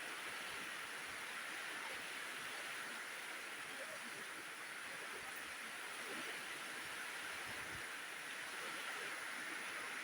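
Heavy rain falling steadily: an even hiss with no distinct drops or thunder.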